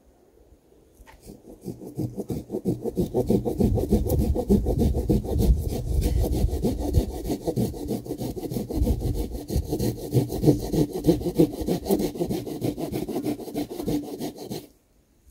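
Silky Gomtaro hand pruning saw cutting through a fallen pine log in quick, even back-and-forth strokes. The sawing starts about a second in, builds up, and stops abruptly near the end.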